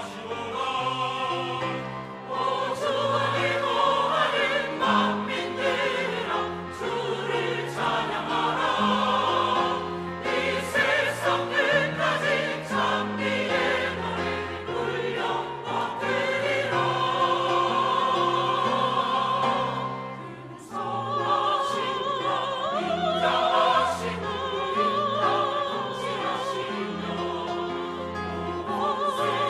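Church choir singing an anthem in parts, voices held with vibrato over steady low accompanying notes, with a short breath between phrases about two-thirds through.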